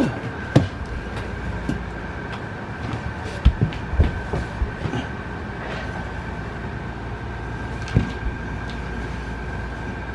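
A few sharp knocks and clunks as a stainless steel slide ski is worked into place under an RV slide-out, over a steady mechanical hum with a thin whine.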